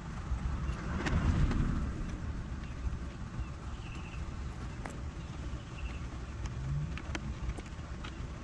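Steady low outdoor rumble, with scattered light clicks and taps as a screwdriver and e-bike parts are handled; a louder swell of noise about a second in.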